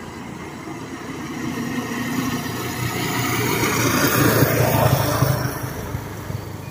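Motorcycle engine passing by on a road: it grows louder, is loudest about four seconds in, then fades away.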